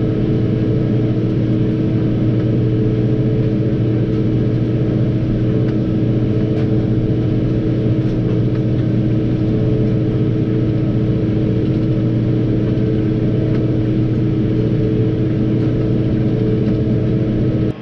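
Tractor engine running steadily under load while pulling discs across a field, a constant even drone heard from inside the cab.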